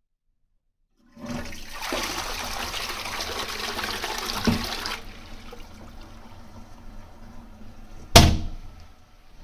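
Toilet flushing: water rushes through loudly for about four seconds, then settles to a quieter steady run. One sharp clunk about eight seconds in is the loudest sound.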